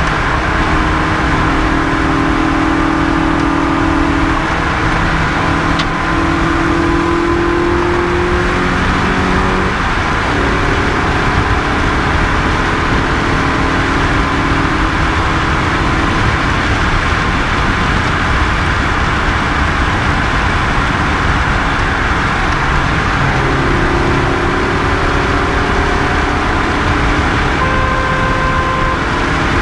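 Rally car engine running hard at speed, heard from inside the cabin over loud road and tyre noise. The engine note shifts in pitch several times; it drops back about ten seconds in and rises again near twenty-three seconds.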